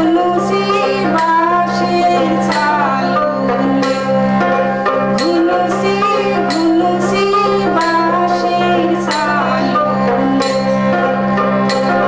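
A woman singing a Char-Chapori folk song of Assam, accompanied by a harmonium drone and a regular percussion beat. Her voice stops near the end, leaving the harmonium and percussion.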